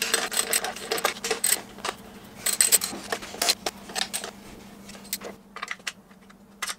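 Metal ring spanner clicking and clinking on the intake plenum bolts as they are tightened down, in quick runs of clicks for the first few seconds, then sparser and fainter.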